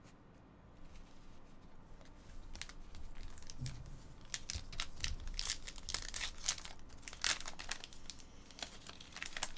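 Foil trading-card pack wrapper crinkling and crackling as it is handled and torn open, sparse at first and busiest a few seconds in.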